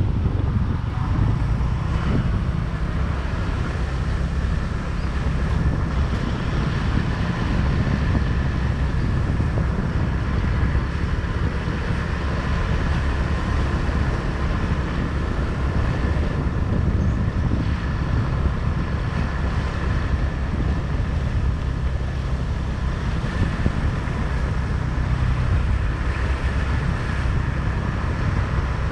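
Motorbike engine running at a steady cruising speed while riding, with wind rushing over the microphone.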